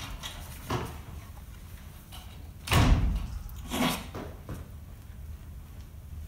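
A door opening and shutting: a light knock, then a loud knock about three seconds in and another about a second later.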